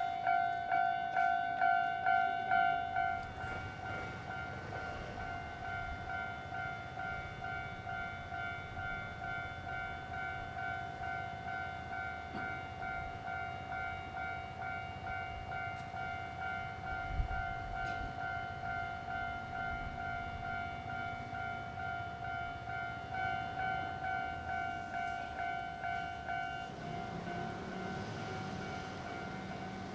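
A Japanese railway level crossing's electronic warning bell dings over and over in an even rhythm, louder for the first few seconds. A passing train's low rumble sits under it, with a single knock midway and the rumble growing near the end.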